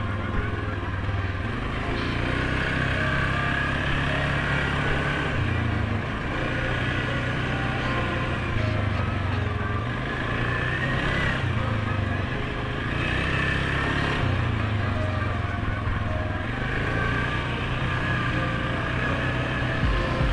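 Suzuki King Quad 750 ATV's single-cylinder engine running steadily as it is ridden along a dirt trail. Its pitch rises and falls every few seconds with the throttle.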